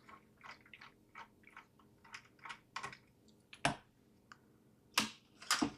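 Faint light ticking, about four a second, from a precision screwdriver undoing a tiny screw inside a mini PC, followed by three sharper clicks in the last two seconds.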